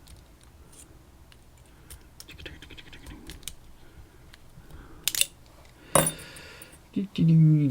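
Lock picks working inside a dimple pin-tumbler lock: faint metallic scratching and small clicks, with two sharper clicks about five and six seconds in.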